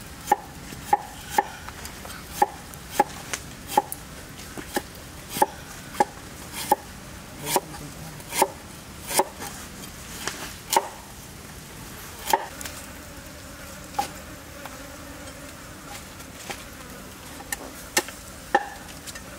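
A cleaver chopping on a wooden chopping block: irregular sharp knocks, about one or two a second, thinning out for a few seconds past the middle.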